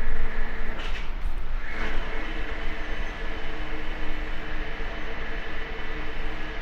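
Hydraulic garbage-cutting machine running: a steady mechanical hum with several held tones over a heavy low rumble, with a couple of short hissing sounds about one to two seconds in.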